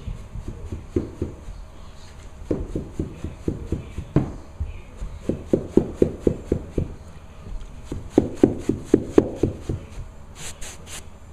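Runs of quick knocks and clicks, several a second, as carpet-cleaning gear (hoses and a trigger spray bottle) is handled, then three short hissing squirts from the spray bottle near the end.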